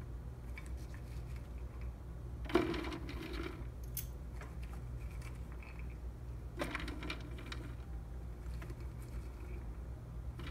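Small pieces of cut carrot and butternut squash clattering lightly on a plastic food-dehydrator tray as they are spread by hand. There is a louder clatter about two and a half seconds in and a run of clicks around seven seconds, over a steady low hum.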